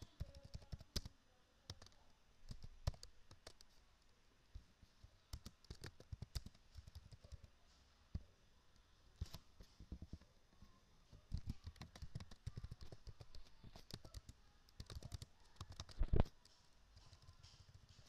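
Typing on a computer keyboard: irregular spurts of key clicks, with one louder key strike near the end.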